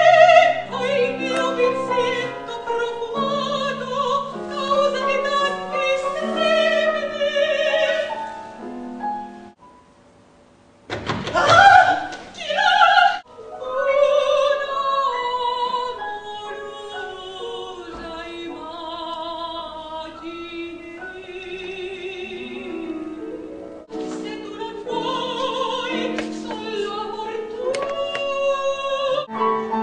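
Operatic soprano singing with a wide vibrato over a piano accompaniment, with a brief break in the music about ten seconds in.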